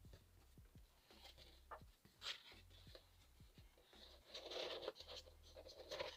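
Faint rustling and light tapping of paper cards and cardboard packaging being handled, with a longer, denser rustle about four seconds in.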